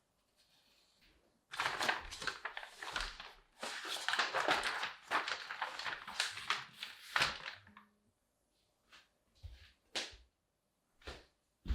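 Packaging being handled and unwrapped: a long stretch of dense crinkling and rustling, then a few separate soft knocks near the end.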